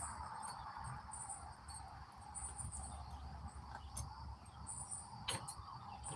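Insects chirping in short high-pitched bursts every second or so, typical of crickets, over a steady background hiss, with a single sharp click about five seconds in.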